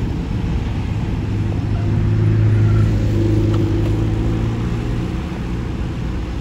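The last covered hopper cars of a freight train rolling away over the rails in a steady low rumble. A road vehicle's engine hum swells about two seconds in and fades again near the end.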